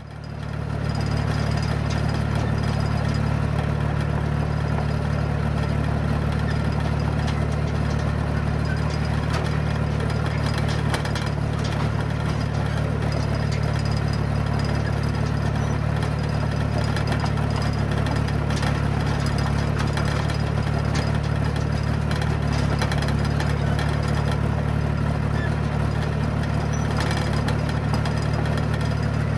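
John Deere crawler dozer's diesel engine running steadily as the machine travels, picked up close from the back of the machine. The sound fades in over the first second, then holds an even, low drone.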